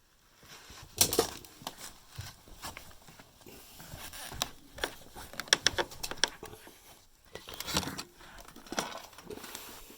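Carpet underlay being handled and laid back down over floorboards: irregular rustling and crinkling with scattered sharp taps and knocks.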